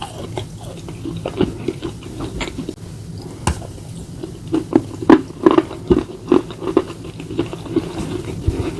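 Close-up chewing of slate pieces and slate paste: irregular sharp crunches and clicks with wet mouth sounds between them, the crunches coming thickest about five to six seconds in.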